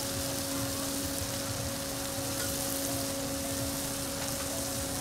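Oyster omelettes and other food sizzling on a hot flat griddle, a steady even hiss, over a steady low hum.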